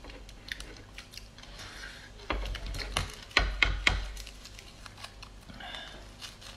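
Oyster knife prying open a raw oyster: the metal blade scraping and clicking against the hard shell, with a burst of sharp cracks between about two and four seconds in.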